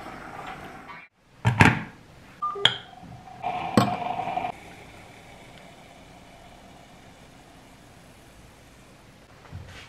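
Kitchen sounds while making Turkish coffee: a few sharp knocks and clinks of utensils, a short electronic beep, and a second or so of a harsher tone. After that only a faint steady hum remains.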